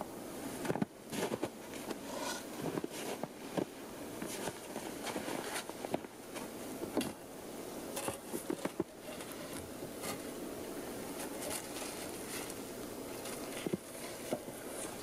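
Split logs being handled on a stacked log wall: irregular knocks, clunks and scrapes of wood, with footsteps in snow.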